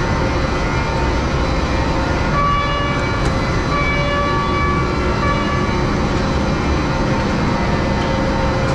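Steady running noise of a vehicle or machine, with a brief high whine of several steady tones from about two and a half to five and a half seconds in.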